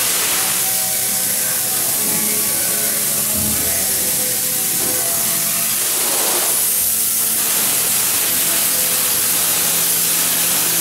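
Spray-foam gun spraying open-cell foam insulation: a steady, continuous hiss.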